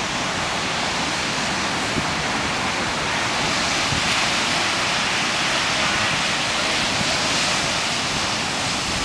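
Ocean surf breaking on the beach: a steady rush of white water that swells a little louder in the middle, with wind on the microphone.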